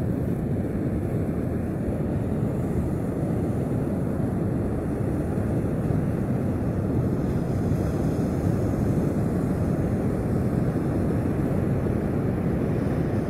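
Steady low rumbling noise of wind on the microphone mixed with ocean surf, with no separate events standing out.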